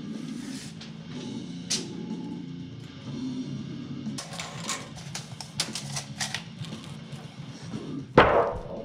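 Background music, with a run of sharp clicks and knocks midway and a loud falling sweep shortly before the end.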